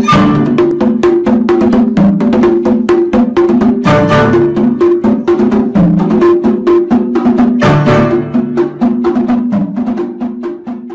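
Background music with a quick, even percussive beat over sustained low tones, fading out near the end.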